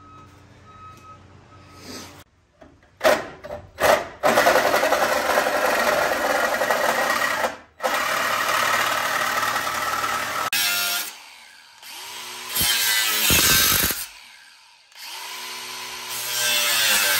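Cordless DeWalt angle grinder with a cut-off wheel cutting through the car's steel front bar in several runs, broken by edits. Between cuts the motor winds down and spins back up with a changing whine.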